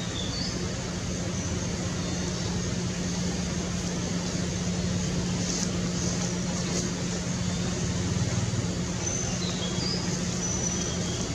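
Steady low motor hum over an even haze of outdoor background noise, with a few brief high chirps about half a second in and again near the end.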